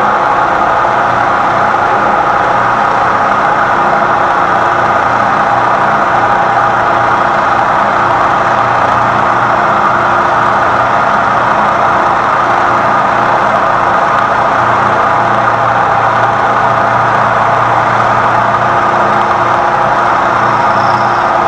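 Lagun manual knee mill running under load, its end mill in a Cat 40 tool holder taking a steady cut into a metal block. It is a continuous milling noise that holds even throughout, over a steady low hum from the spindle drive.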